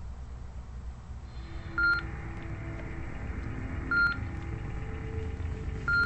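Three short electronic beeps, about two seconds apart, over a low synthesized drone of held tones that comes in about a second in and builds.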